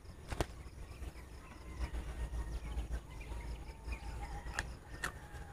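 Faint outdoor ambience: distant birds calling, low wind rumble on the microphone, and a few sharp handling clicks, one early on and two near the end.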